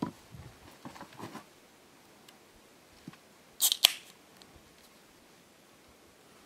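Beverage can being opened: the ring-pull cracks open with a short, sharp hiss about three and a half seconds in, after a few light knocks of the can handled on a table.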